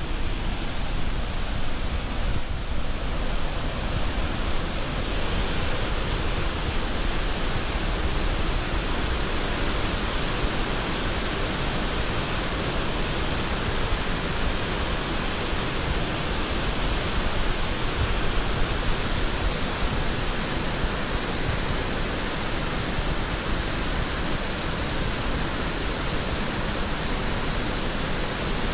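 Waterfall rushing: a steady, unbroken hiss of falling water.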